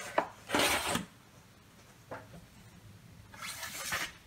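A card picture being slid sideways out of a wooden kamishibai frame: two papery swishes, the first about half a second in and a longer one near the end, with a light tap in between.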